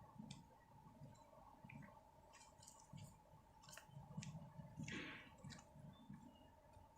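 Near silence, with faint scattered clicks over a faint low rumble.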